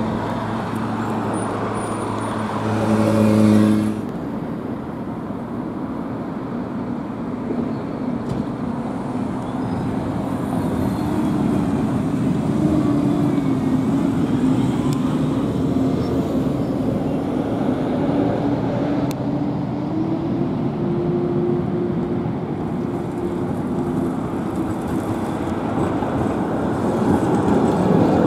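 Street traffic with passing vehicles: a steady hum that swells and cuts off suddenly about four seconds in, then an articulated city bus running past with a slowly wavering engine tone. Near the end, an ex-Vienna E1 tram with its c3 trailer rolls by and the sound grows louder.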